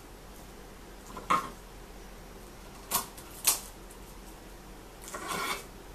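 Kitchen knife cutting the tips off garlic cloves on a wooden cutting board: three sharp knocks of the blade on the board, then a brief rustle near the end.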